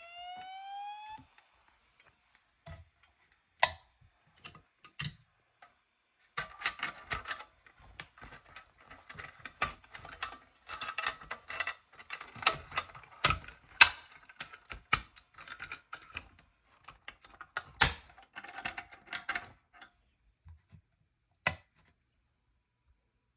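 A fire alarm speaker's rising evacuation tone ends about a second in. It is followed by irregular clicking, clacking and rattling of something being handled, with several louder sharp clicks.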